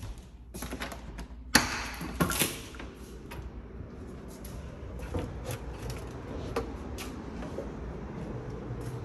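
Back door being unlatched and pulled open: a sharp knock about a second and a half in, the loudest sound, then a rattle of knocks just after, and a few lighter taps later. Under them runs a steady low outdoor rumble.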